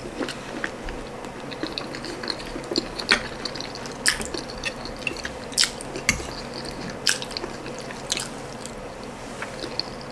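Close-up mouth sounds of someone eating ndole and boiled ripe plantain: soft wet chewing with irregular smacks and clicks, the louder ones about a second apart.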